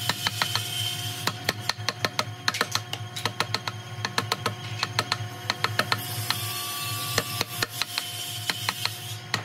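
Wooden mallet striking a wood chisel, driving it into dry tree-stump wood to cut a notch: a rapid, uneven series of sharp knocks, a few a second.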